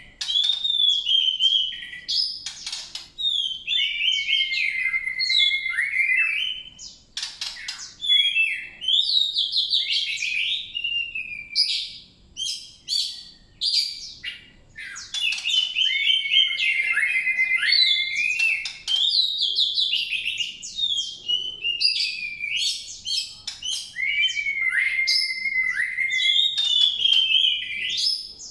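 Songbird singing a long, varied song of rapid trills, sharp chirps and falling whistled phrases, with only brief pauses.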